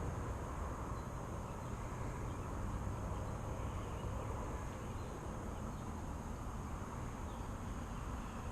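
Steady low rumble with an even hiss over it: outdoor background noise with no distinct event.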